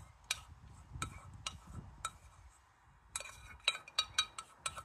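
Spoon scraping and knocking against the inside of a small hard-anodised aluminium pressure cooker pot as stew is tipped out into a bowl: a few separate clinks, then a quick run of them near the end.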